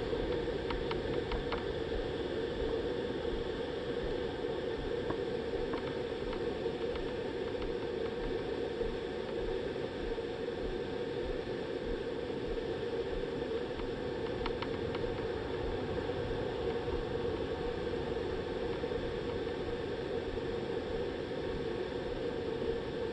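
Steady rush of flowing creek water, with a few faint clicks about a second in and again midway.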